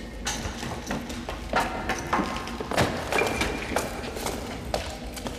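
Irregular knocks, thuds and clatters, several in quick clusters, from people moving about and handling things among rubble, over a steady low rumble.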